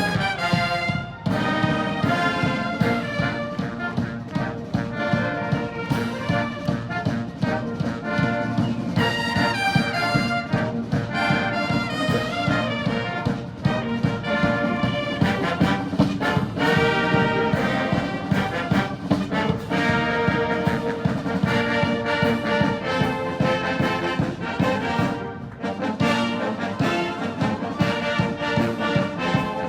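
Massed British Army military band playing a brass-led arrangement of a hard-rock song, trumpets and trombones carrying the tune over a steady drum beat.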